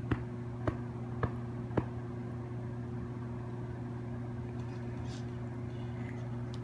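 Steady low machine hum, with four short sharp clicks about half a second apart in the first two seconds.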